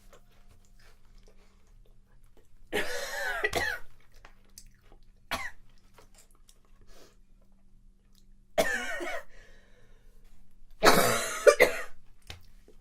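A person coughing in several separate fits, the loudest near the end, after inhaling spice from a seasoned potato chip.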